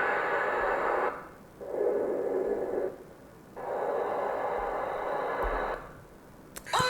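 Wind sound effects auditioned one after another: three bursts of rushing wind noise with sharp cut-offs, the middle one the shortest.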